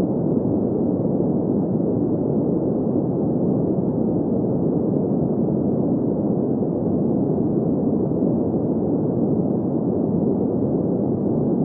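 Steady green noise for sleep: an even hiss centred in the middle range, with no highs, that does not change.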